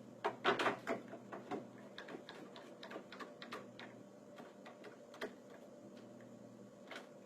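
Clamps being tightened down on a shutter: a quick run of clicks and knocks in the first second, then scattered ticks, with a last knock near the end.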